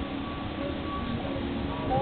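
Background music with held notes, over a low rumble.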